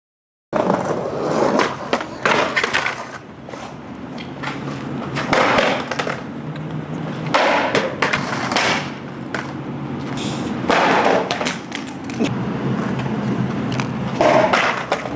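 Skateboard wheels rolling on rough asphalt, broken every second or few by sharp clacks and slaps as the board pops and hits the ground during repeated trick attempts.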